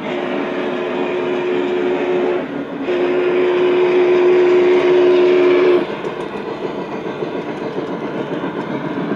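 Model steam locomotive's onboard sound system blowing its steam whistle in two long blasts, the second longer, over the steady rumble and clatter of the O gauge train running along the track.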